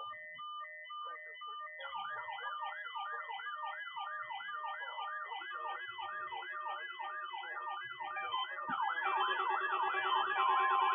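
Electronic weather-radio alert tones: a pattern of short beeps, then a fast, evenly repeating siren-like warble. More alarm sounds layer in and a steady alarm tone joins near the end, growing louder. They are the alarm signals of the weekly NOAA Weather Radio test.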